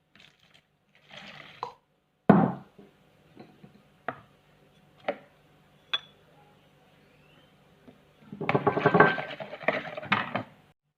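Kitchen utensils knocking and clinking against bowls and dishes: a few separate sharp knocks, then about two seconds of rapid clattering near the end.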